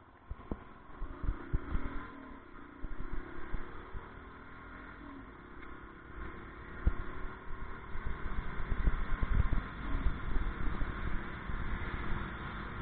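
Riding noise on a camera mounted on a moving two-wheeler: wind buffeting the microphone and road rumble, with a vehicle engine running. It gets louder in the second half as the speed picks up.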